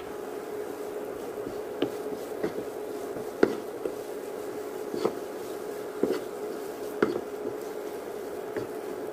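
Wooden spatula stirring and pressing a thick carrot-coconut burfi mixture in a nonstick pan, knocking against the pan about seven times at irregular intervals, over a steady hum.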